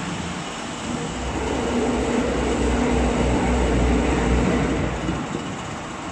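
Log debarker of a plywood veneer peeling line running: a steady mechanical rumble with a low hum that grows louder about a second in and eases off near the end.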